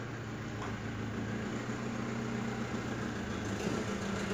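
Steady low hum in the background, even throughout.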